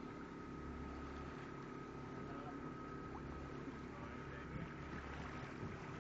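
A boat's engine running steadily, heard from on board over a hiss of water and wind.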